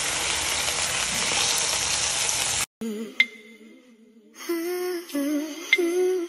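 Sausages and a slice of meat sizzling in a frying pan, an even hiss that cuts off suddenly about two and a half seconds in. A slow hummed melody follows, with two short sharp clicks.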